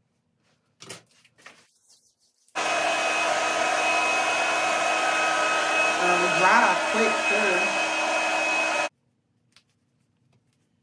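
Handheld hair dryer switched on about two and a half seconds in, running steadily at one speed for about six seconds, then switched off abruptly. A few handling clicks come just before it starts.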